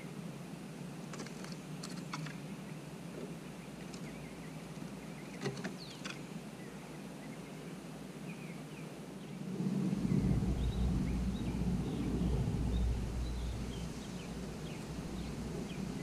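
Wind buffeting the microphone, a low rumble that starts about ten seconds in and goes on gusting, with faint bird chirps and a few soft clicks earlier on.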